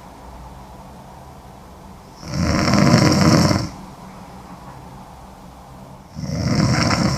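A woman snoring heavily: two loud snores about four seconds apart, each about a second and a half long, with quiet breathing between them.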